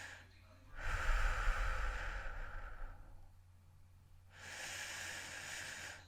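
Heavy human breathing, slow and deep: a loud breath lasting about two seconds with a low rumble under it, a pause of over a second, then a softer breath near the end.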